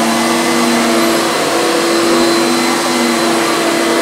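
Electrolux Power System Z1710 upright vacuum cleaner's 1400-watt motor running steadily with a constant whine, as the cleaner is pushed over carpet.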